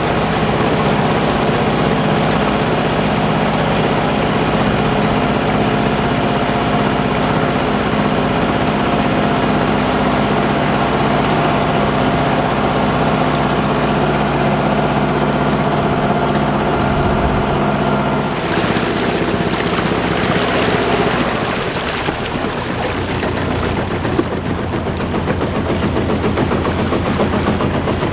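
Motor launch's engine running steadily as the boat cruises along the river, with water and wind noise. About eighteen seconds in the engine note changes and a louder hiss joins in, and a few seconds later the note settles lower.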